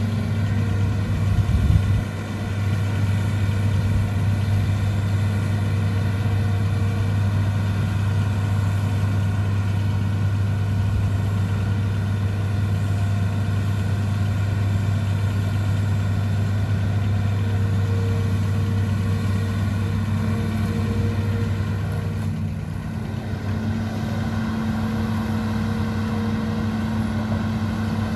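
Hitachi ZAXIS 210LC long-reach excavator's diesel engine running steadily as the machine works. It gets louder for a moment about two seconds in and eases off briefly around twenty-two seconds.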